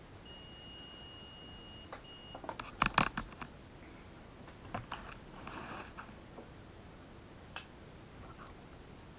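Multimeter continuity tester beeping: one steady high beep for about two seconds, broken briefly just before it stops, as the test probes make contact. Right after, a burst of knocks and clatter, the loudest sound, followed by a few lighter clicks and rustles.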